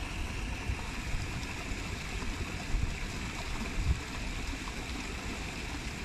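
Water running steadily down a small stepped cascade, an even splashing rush with a couple of brief louder surges about three and four seconds in.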